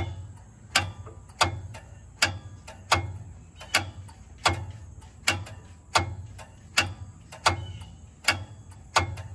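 Railroad signal code relay clicking steadily as it pulses out 75 code. Its contacts clack about once every three-quarters of a second, with a softer click in between.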